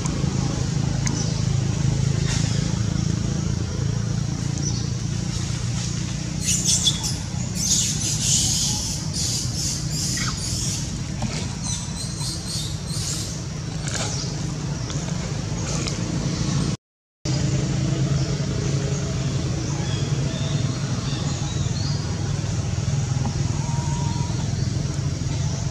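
Steady low outdoor rumble like distant traffic. From about six to thirteen seconds in there are patches of crackly rustling. The sound cuts out completely for a split second about two-thirds of the way through.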